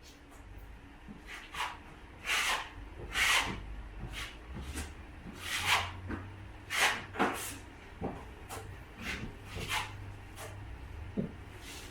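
Drywall taping knife scraping compound along a butt joint: about a dozen short strokes at an uneven pace.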